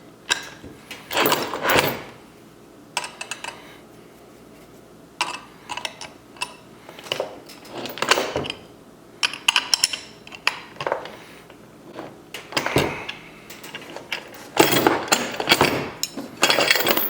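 Metal hardware clinking and rattling, with a wrench working on the chain's lock nuts and washers as they are tightened. The sound comes in irregular clusters of short clicks with pauses between.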